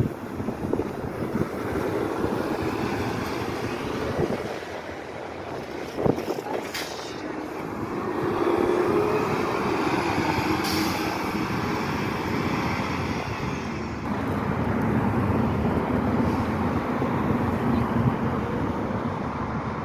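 City transit buses pulling away and driving past, engines running over general traffic noise, with a couple of sharp knocks about six seconds in and a car passing close near the end.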